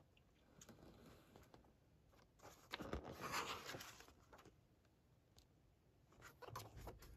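Faint rustle of a large book's paper pages being turned by hand, about three seconds in and again briefly near the end.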